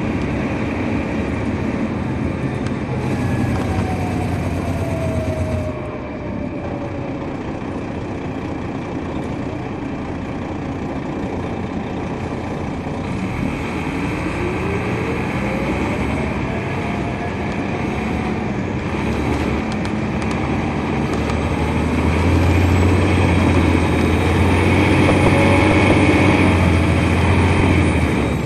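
Detroit Diesel Series 60 engine and Allison B500 automatic transmission of a 2003 MCI D4500 coach, heard from inside the bus while it drives. The engine eases off about six seconds in, a whine rises in pitch midway, and the engine pulls hard and loud in the last several seconds.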